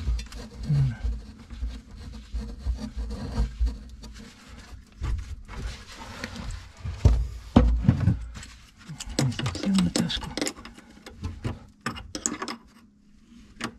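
Irregular clicks, knocks and scrapes of hands and tools working on a faucet mixer and its parts, with low thumps mixed in.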